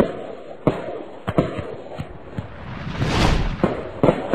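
Fireworks going off: irregular sharp bangs, with a rushing whoosh that swells and fades about three seconds in.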